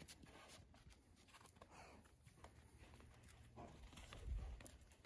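Faint rustling and small clicks of saddle tack being handled on a standing horse, with one dull low thump about four seconds in.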